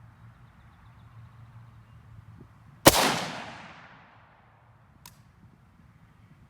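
A single rifle shot with a 5.45×39 mm Wolf Military Classic 55-grain hollow-point round, about three seconds in, its echo trailing off over about a second. A faint click follows about two seconds later.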